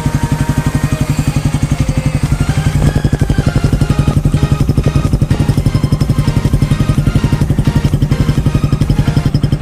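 Suzuki Raider 150's single-cylinder four-stroke engine idling steadily through a big elbow exhaust header with the catalytic canister removed, an even rapid beat of exhaust pulses, while being warmed up.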